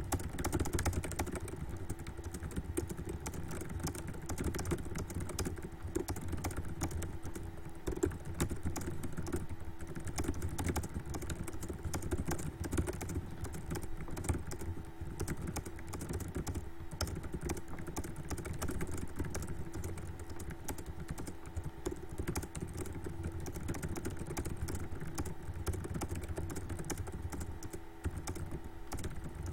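Fast, continuous typing on a computer keyboard, a dense stream of key clicks at a typing-test pace of about 130 words per minute, over a low steady hum.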